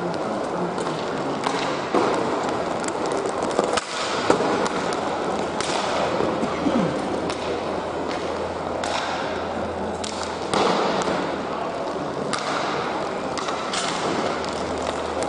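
Hockey play on a rink: a steady scraping wash with many sharp clacks and thuds scattered through it, the sharpest about four seconds in.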